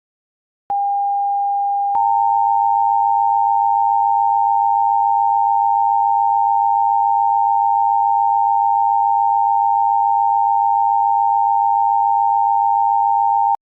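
Emergency Alert System attention signal. A single steady tone starts about a second in. A second tone joins it about two seconds in, and the two-tone signal holds steady for nearly twelve seconds before cutting off sharply just before the end. It is the alert tone that comes before a civil danger warning.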